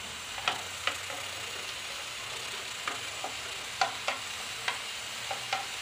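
Masala frying in a kadhai with a steady sizzle, broken by scattered sharp clicks and taps as fried potato pieces are pushed off a plate into the pan with a metal spatula.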